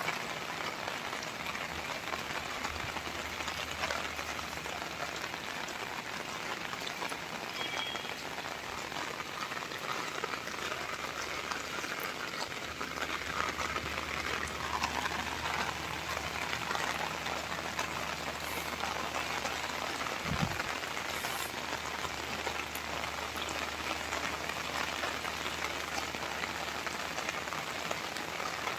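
Steady rain falling on hard surfaces, with one brief low thump about two-thirds of the way through.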